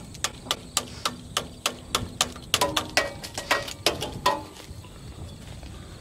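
Ratchet wrench clicking in short strokes, about four clicks a second, as a bolt is turned while mounting a replacement hydraulic reel-lift cylinder on a combine's draper header. The clicking stops about four and a half seconds in.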